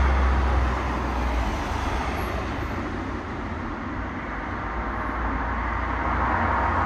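Road traffic noise: a steady rumble of vehicles passing, louder at the start, dipping in the middle and rising again near the end.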